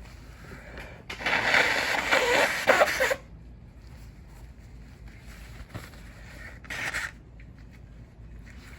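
A person blowing their nose hard for about two seconds, with a wavering honk toward the end of the blow. A second, shorter and quieter blow follows a few seconds later.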